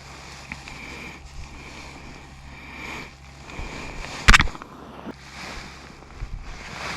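Steady outdoor background noise with a low hum, broken by one sharp knock about four seconds in.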